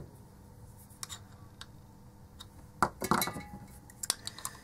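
A few sharp metallic clinks, with a short scraping cluster about three seconds in, as a screwdriver and needle-nose pliers pick at the metal E27 screw base of an opened LED bulb.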